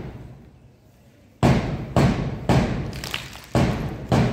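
After about a second and a half of quiet, loud sharp thuds begin in a steady beat, about two a second, each ringing out briefly. They keep time for a mass P.T. drill.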